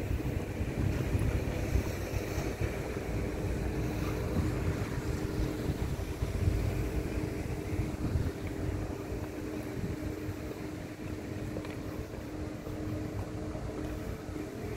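Wind rumbling on the microphone over a steady low machine hum.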